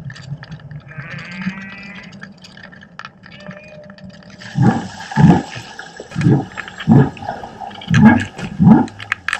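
Underwater sound picked up by a camera dropped in the sea on a humpback whale migration route. About a second in there is a faint high pitched call. From about halfway there are six short, loud, low pulses, roughly one every half second to second, which may be humpback grunts or water knocking the camera housing.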